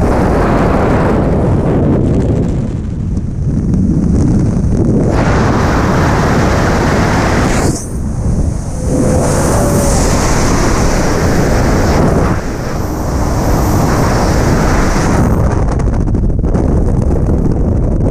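Loud freefall wind rushing and buffeting over an action camera's microphone during a skydive, dipping briefly a few times.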